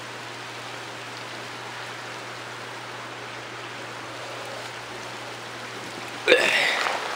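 Steady rushing of a mountain creek, an even hiss with no breaks. About six seconds in, a sudden louder burst of noise breaks in.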